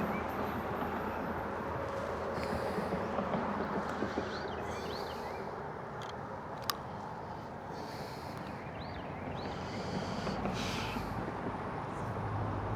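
Road traffic from a nearby road: a steady hum of tyre noise with cars swelling past every few seconds, under faint bird chirps and one sharp click about two-thirds of the way through.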